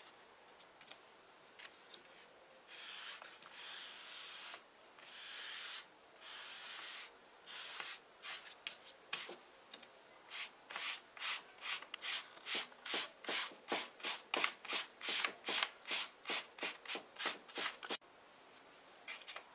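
A sponge block loaded with pigment being rubbed over upholstery leather: a few slow, long strokes, then quick back-and-forth strokes about three a second that stop near the end. This is a second colour being rubbed over the base coat to give the leather a wood-grain look.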